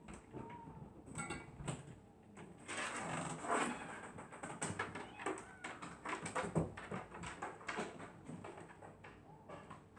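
A dog snoring in its sleep, with one longer noisy breath about three seconds in, amid small clicks and rustles.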